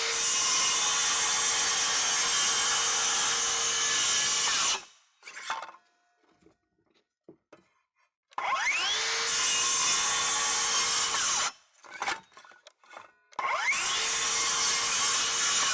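Metabo HPT 36-volt MultiVolt 7-1/4-inch cordless circular saw in regular mode, cutting thick red oak in three runs. The saw stops about five seconds in, starts again about eight seconds in and again about thirteen seconds in, each start with a rising whine as the blade spins up, then a steady cutting sound; a few light knocks fall in the pauses.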